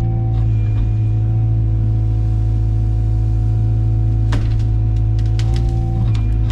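Heavy equipment's diesel engine running at a steady throttle, a loud even hum with a constant drone, with a few sharp clicks or snaps about four to five and a half seconds in.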